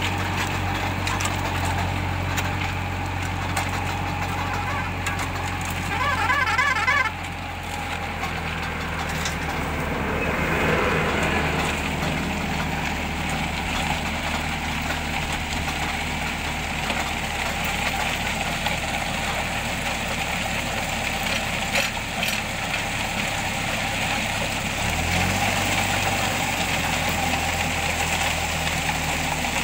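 Tractor engine running steadily under load, driving a PTO-powered post-hole auger that bores into gravelly soil. Near the end the engine note dips briefly and recovers.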